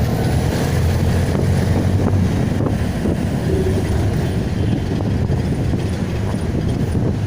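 Steady vehicle engine and road rumble, heard while riding through city traffic.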